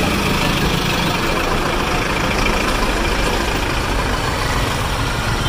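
Bus engine idling steadily close by, a continuous low rumble under general traffic noise.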